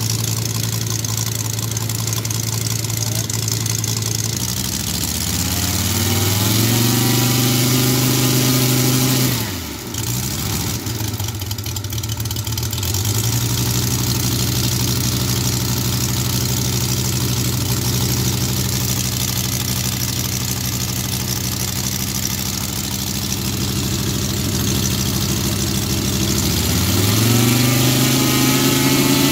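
A motor vehicle's engine running steadily, then revving up about four seconds in. Its pitch dips sharply and climbs back around ten seconds in, holds steady for a long stretch, and rises again near the end.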